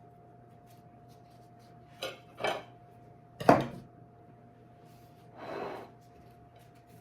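Dishes and utensils clattering: two light knocks about two seconds in, then a sharp, loud clack a second later, and a softer brief scrape near the end.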